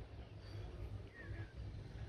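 Outdoor ambience: a steady low rumble with a few faint bird chirps, one falling chirp a little over a second in.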